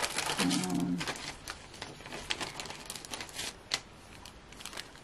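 Small clicks and plastic rustling as packets of self-adhesive craft gems are handled and sorted through, with one sharper click near the end.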